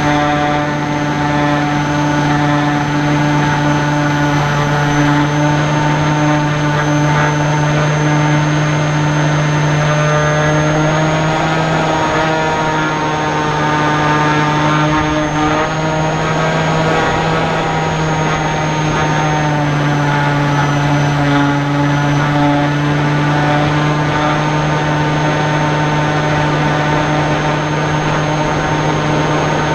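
Electric motor and propeller of a small R/C flying wing, heard from a camera mounted on the plane, running steadily in flight. It makes a constant droning whine whose pitch shifts slightly now and then with the throttle.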